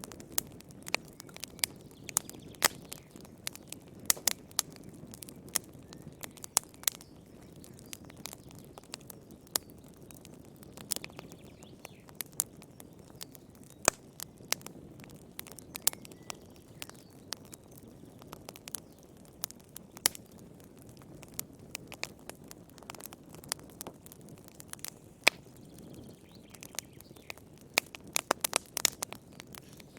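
Wood fire crackling in a fireplace: irregular sharp pops and snaps over a low, steady rush of burning, with a quick cluster of pops near the end.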